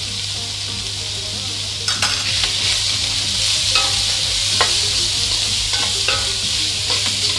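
Sliced pork and carrot stir-frying in a wok: a steady sizzle. From about two seconds in, a utensil repeatedly scrapes and knocks against the pan as the food is tossed.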